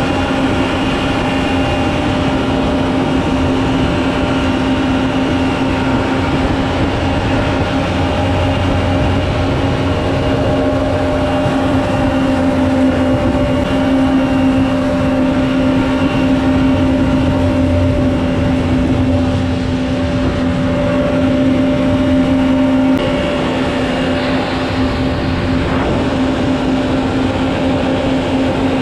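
Mini jet boat's 1053cc Yamaha four-stroke engine and water jet running steadily at a constant pitch, with the rush of river water past the hull.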